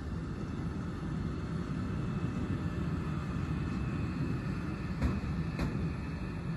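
VR Sr3 (Siemens Vectron) electric locomotive running slowly past as a light engine: a steady low rumble, with a couple of sharp clicks about five seconds in.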